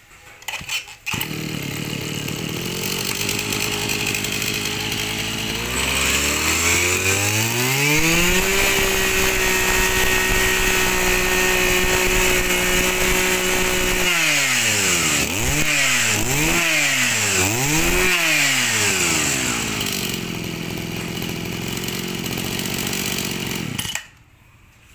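Mitsubishi 26cc two-stroke brush cutter engine catching about a second in and idling. It is then revved smoothly up to a steady high speed held for several seconds, blipped three times, and let drop back to idle before it cuts off near the end.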